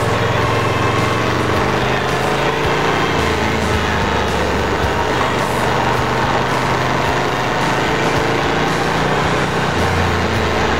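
2007 Moto Guzzi Griso 1100's V-twin engine running under way through a series of bends, mixed with wind rush. The engine note drops in pitch about three seconds in and again near the end as road speed changes.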